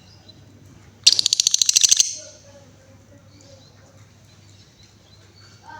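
Female lovebird giving a fast chattering trill, a rapid run of sharp high chirps about a second long, followed by faint soft chirps.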